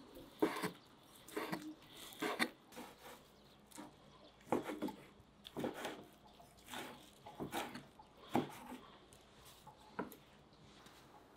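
Large kitchen knife chopping roasted shawarma chicken on a wooden cutting board: irregular knocks of the blade striking the board, one or two a second.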